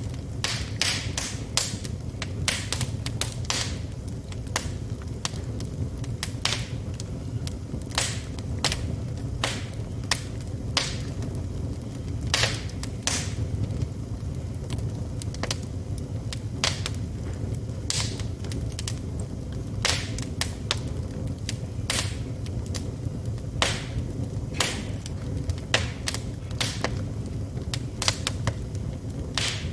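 Wood fire burning in a fireplace, crackling and popping: sharp snaps come at irregular intervals, several a second, over a steady low rumble of the flames.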